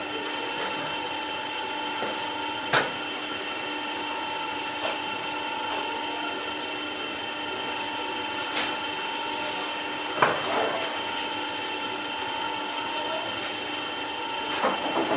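Bakery machinery running with a steady hum of several fixed tones, broken by a few sharp knocks, the loudest about three seconds in and another clatter about ten seconds in.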